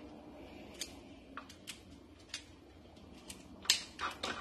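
Kitchen scissors snipping away a crab's gills: a run of short, sharp, irregular snips, the loudest one near the end.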